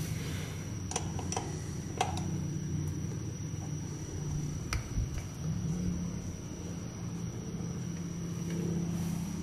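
A few light clicks from a wrench being worked on a motorcycle brake caliper's bleeder valve, over a steady low hum.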